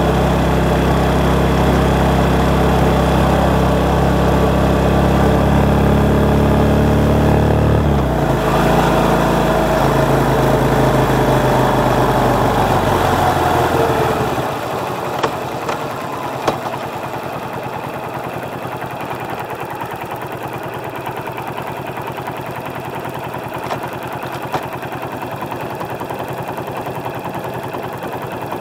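Motorcycle engine picked up by a microphone under the seat: it runs strongly under way, changes note about eight seconds in, and its pitch falls as the bike slows. From about fourteen seconds it settles to a quieter, steady idle with the bike at a standstill, with a few faint clicks.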